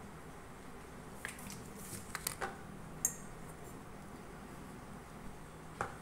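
Chocolate syrup squeezed from a plastic squeeze bottle into a glass, a few faint squelches. A sharp click with a short ring follows about halfway through, and near the end a light knock as the glass is set down on a wooden chopping board.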